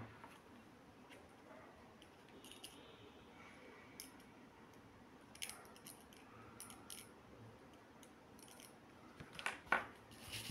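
Faint, scattered small clicks and taps from the parts of a disassembled Nokia mobile phone being handled and prised at, with a tighter run of louder clicks near the end.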